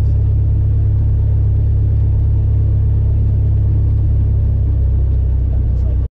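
Piston engine and propeller of a single-engine light airplane, a steady loud drone heard from inside the cabin as the plane rolls along the runway. It cuts off abruptly about six seconds in.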